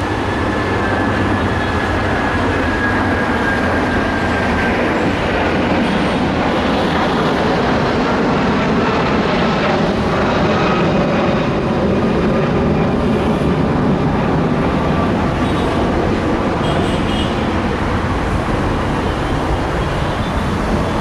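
Metre-gauge diesel express train running, a loud steady rumble and rattle from the train.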